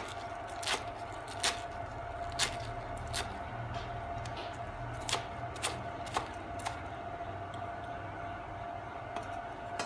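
Kitchen knife chopping Malabar spinach leaves on a wooden cutting board: sharp, irregularly spaced knocks of the blade on the board, mostly in the first seven seconds. A steady faint hum runs underneath.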